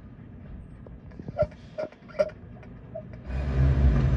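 A few scattered light clicks, then about three seconds in a heavy vehicle's engine comes up to a loud low rumble.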